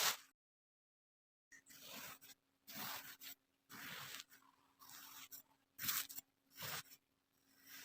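Kinetic sand being worked by hand: a series of about seven short, crunchy scraping strokes, starting after about a second of silence.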